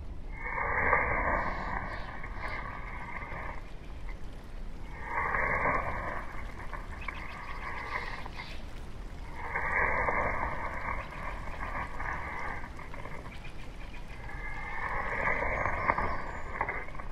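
Ferro rod being struck with a scraper, four long scraping strokes of about three seconds each, a few seconds apart.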